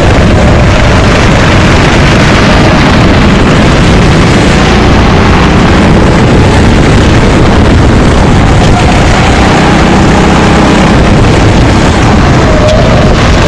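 Racing kart engine running at race pace, very loud and steady, its faint engine pitch rising and falling with the throttle.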